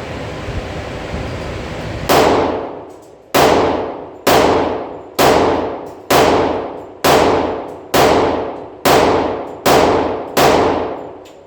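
Glock 20 pistol in 10mm Auto fired ten times in a steady string, about one shot a second, each shot ringing and echoing off the walls of an indoor range. Before the first shot, a steady ventilation hiss.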